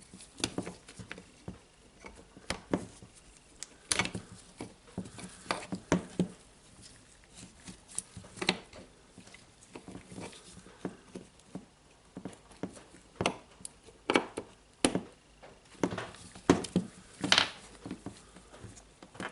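Irregular small clicks and taps of parts being handled: wires and the LED connector being fitted onto the switch in the plastic housing of a Makita DHR202 rotary hammer during reassembly. The clicks come unevenly, a few at a time, with the sharpest ones about two thirds of the way through.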